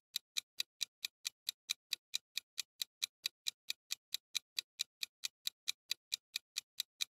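Clock-ticking sound effect of a quiz countdown timer: short, even ticks, about four a second, marking the time left to guess.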